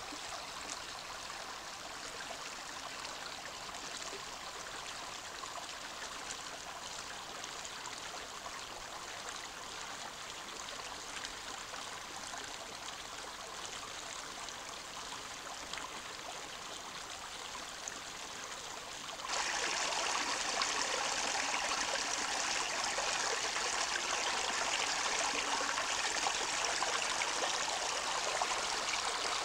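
Small rocky forest stream babbling and splashing over stones in a steady rush. About two-thirds of the way through, it becomes suddenly louder and brighter, as the water spills white over a small cascade.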